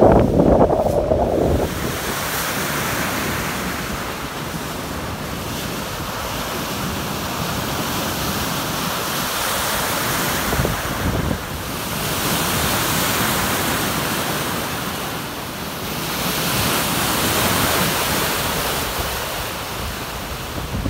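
Artificial wave pool's waves breaking and rushing, the wash swelling and fading every few seconds, with wind noise on the microphone, strongest in the first second or two.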